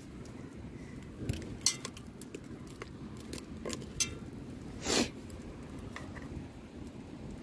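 Metal tongs clinking and scraping against an aluminium camp pot while stirring chunks of chicken and daikon: a few sharp clinks, then a longer scrape about five seconds in, over a low steady rush.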